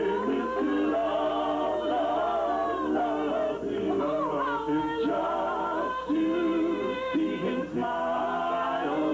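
Music sung by a group of voices in harmony, with sustained and gliding notes.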